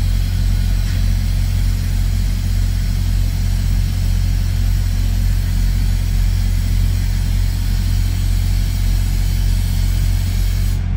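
Semi-truck diesel engine idling steadily, a constant low rumble heard from inside the cab.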